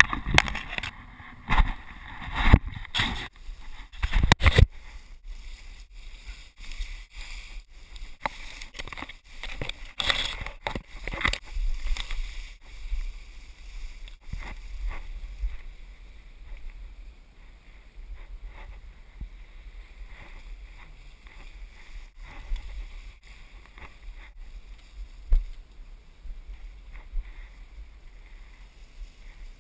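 Knocks and bumps from the camera being handled for the first few seconds, then softer irregular rustling and crackling of grass and leaves as it moves through brush, over a steady low rumble.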